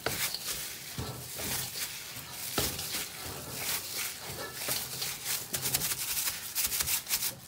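Hands kneading soft, oiled roti dough in a stainless steel bowl: repeated wet slaps and squelches of the dough against the metal, coming faster near the end.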